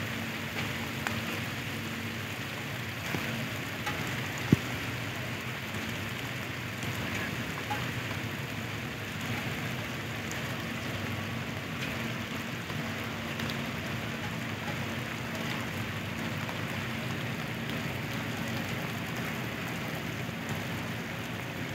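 Heavy rain falling steadily, an even hiss of drops on the surfaces around, with a faint steady hum underneath. A single sharp tap stands out about four seconds in.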